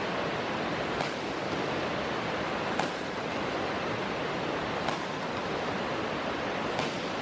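Badminton racket strings striking a shuttlecock four times, about two seconds apart, as two players trade shots across the net, over a steady hiss.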